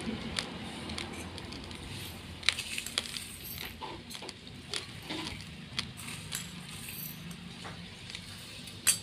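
Steel spoon scooping dry raw rice in a stainless steel bowl: scattered clinks of the spoon against the bowl over the light rattle of hard grains, with the sharpest clink near the end.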